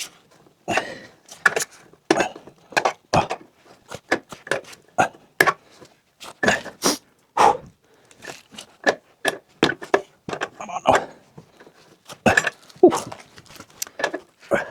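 Irregular knocks and clatters, a few each second, from tools and a car wheel being worked on while freeing a stuck wheel.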